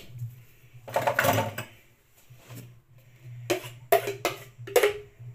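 Kitchen handling sounds as a glass bowl of beaten egg is lifted and tipped into a steel pan of spaghetti: a brief scrape about a second in, then several sharp knocks of glass against the metal pan, over a steady low hum.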